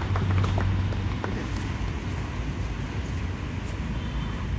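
The last few scattered hand claps die away in the first second, and then a steady low rumble of outdoor background noise is left.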